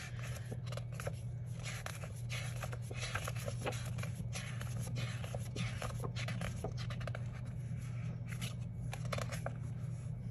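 Sticker book sheets being flipped and handled: irregular paper rustling and crinkling with small clicks and scrapes, over a steady low hum.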